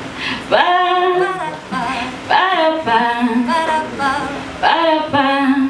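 A voice singing unaccompanied in several short phrases, with held notes carrying a light vibrato.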